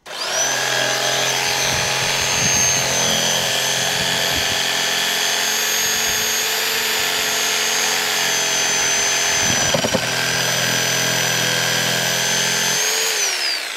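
Power saw running with a steady high whine, cutting fruit-tree branches into firewood chunks. Near the end it winds down with a falling pitch.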